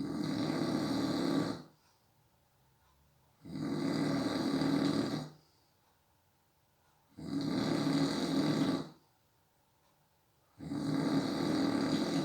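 A sleeping person snoring: four long snores, each about a second and a half, coming evenly about every three and a half seconds.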